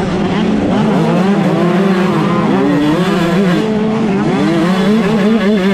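GasGas 125cc two-stroke motocross bike engine revving hard, its pitch rising and falling over and over as the throttle is worked and the gears change, with the engines of the bikes just ahead mixed in.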